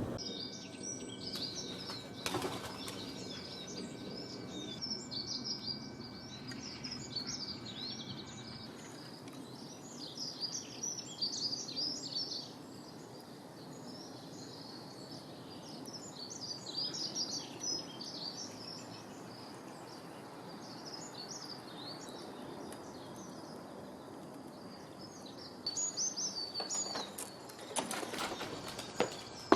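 Small birds chirping and twittering continuously, with brief rustling clicks about two seconds in and a cluster of them near the end.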